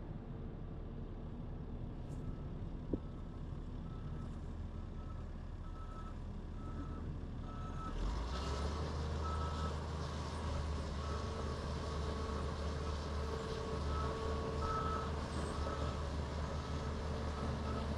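Heavy equipment's back-up alarm beeping steadily, somewhat more than once a second, over a diesel engine running. The engine grows louder about eight seconds in, as if working or revving.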